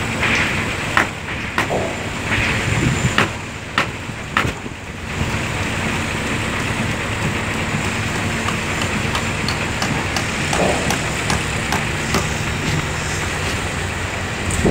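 Construction-site noise: an engine running steadily with a low hum, with several sharp knocks and taps in the first five seconds and fainter ones later.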